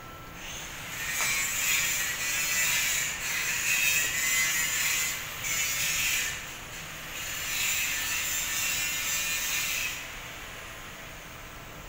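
A loud hiss that swells and fades in waves, starting about half a second in and cutting off sharply about ten seconds in.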